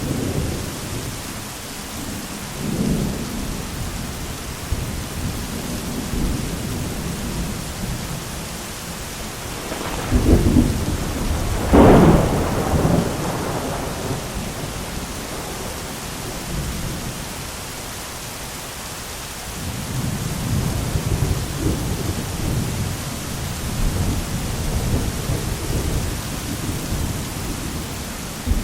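Thunderstorm: steady rain hissing under rolling thunder, with two sharp thunderclaps about ten and twelve seconds in, the second the loudest, and long low rumbles later on.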